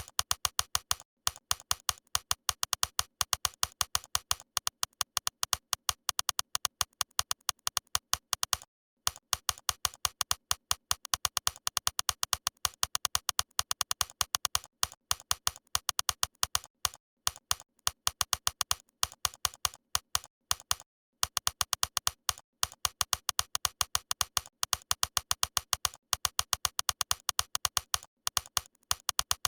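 A rapid, uneven run of sharp clicks or taps, several a second, pausing briefly about 9 seconds and again about 21 seconds in.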